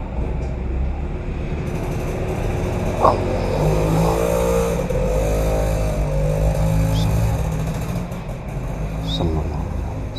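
A motor vehicle's engine, running over a steady low hum, swells from about four to seven seconds in and then fades.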